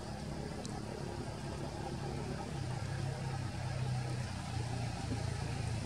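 A motor engine running steadily, a low hum that grows louder in the second half, with one faint click about two thirds of a second in.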